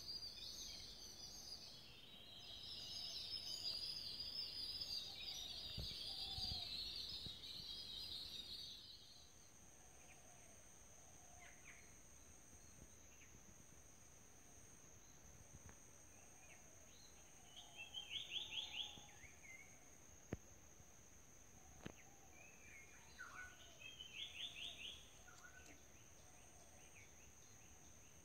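Faint outdoor ambience of birds calling. A dense high chirping chorus cuts off suddenly about nine seconds in, leaving a steady high whine with scattered chirps and two short rapid trills.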